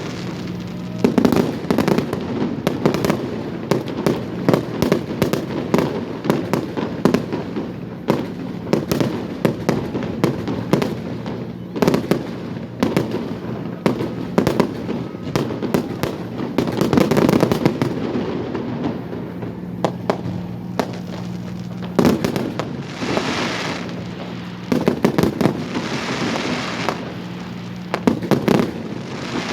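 Fireworks display: a continuous barrage of shell bursts, with sharp bangs and crackling going off several times a second throughout.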